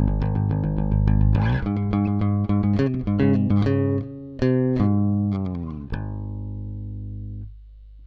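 Yamaha RBX270J four-string electric bass played fingerstyle: a quick run of plucked notes, then a line of separate notes, ending on one long note that rings for about a second and a half before it is muted. A faint low hum remains after the note stops.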